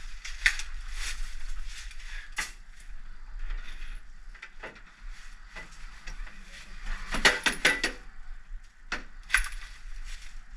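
A metal pole tool knocking and scraping against the sheet-metal inside of a vending machine, with scattered clinks and knocks and a quick run of rattling clicks about seven seconds in.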